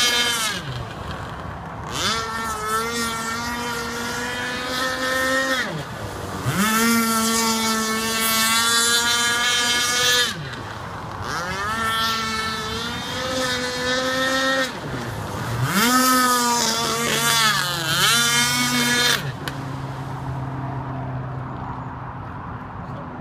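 A radio-controlled speedboat's 26cc two-stroke petrol engine, throttled up to high revs and back down about four times in succession. From about nineteen seconds in, the engine drops back to a low, steady note.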